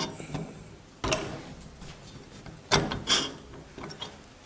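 Clicks and knocks from a bandsaw blade tooth setter as the blade is shifted in its jaws and the lever worked, a sharp knock about a second in and a louder pair near three seconds in.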